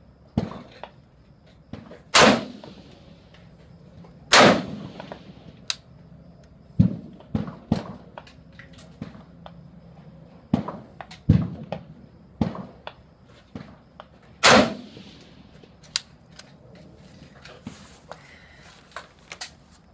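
Three loud rifle shots from a 5.56 AR-15 Special Purpose Rifle, about two seconds apart and then a long pause before the third. Each shot rings on briefly under the covered firing line. Fainter sharp reports and clicks fall between them.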